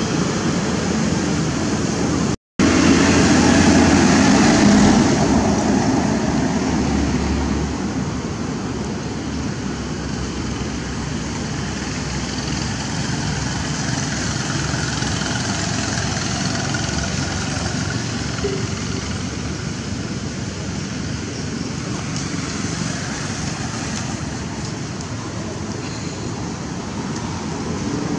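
Steady outdoor background noise, a hiss over a low rumble. It cuts out for a moment about two and a half seconds in, then runs somewhat louder for a few seconds before settling.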